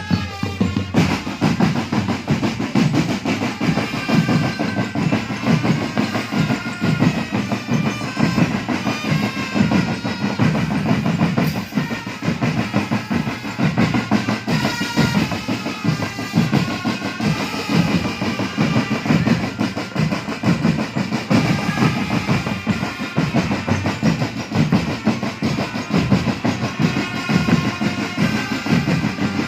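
Indonesian marching drum band playing continuously, snare and bass drums beating a fast, busy rhythm under a melody line.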